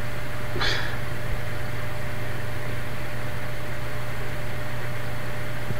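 Steady low electrical hum with an even hiss, the constant background noise of a webcam recording, with one brief faint breathy sound about half a second in.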